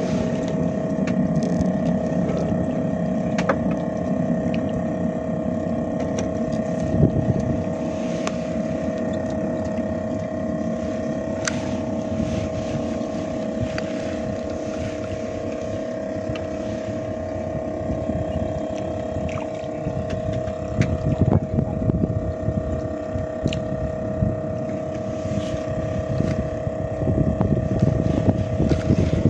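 A motorboat engine running steadily, a constant hum, with wind buffeting the microphone and a few light clicks.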